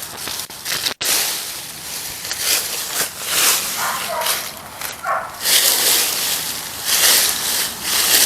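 Leafy sweet potato vines rustling and swishing in irregular bursts as they are pulled and cut back by hand.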